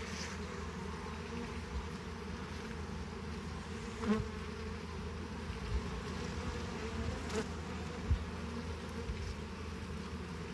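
Honey bee colony buzzing steadily at an open hive, a calm, even hum from a docile colony. A louder buzz passes close by now and then, most clearly about four seconds in.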